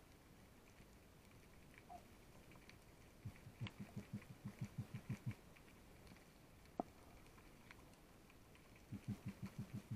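Underwater, short trains of low, rapid pulses, about five a second for two seconds at a time: one in the middle and another starting near the end, with faint scattered clicks and one sharp click between them.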